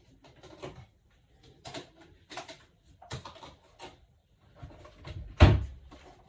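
Kitchen utensil scraping and tapping against a food container as food is portioned out: a string of short scrapes and clicks, with one louder knock near the end.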